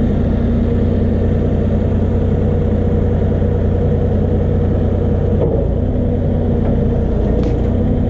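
Engine of a truck-mounted forklift running steadily close by, with an even, unchanging hum.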